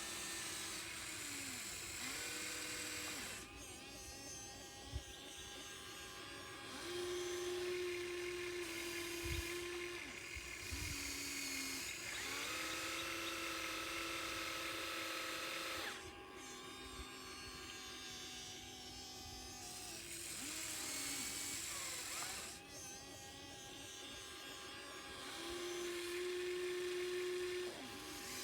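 Radio-controlled model excavator's small electric motors whining, in stretches of a few seconds each, the pitch gliding and stepping up and down as they work under changing load.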